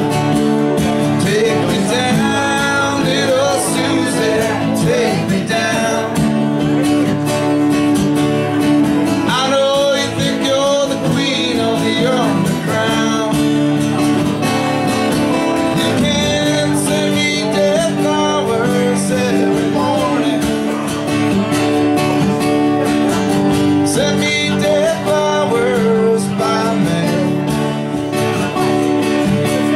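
Two acoustic guitars played live together, strummed and picked, with a man's singing voice over them in stretches.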